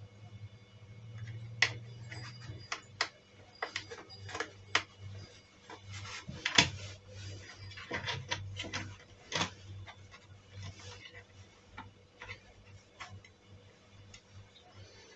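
Irregular clicks and taps of a small screwdriver and wires working against a plastic electrical enclosure as cables are fitted into its terminal block, over a faint steady low hum.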